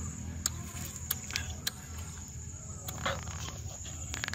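Close-up chewing of crisp, raw bilimbi fruit, with scattered short, sharp crunches and mouth clicks.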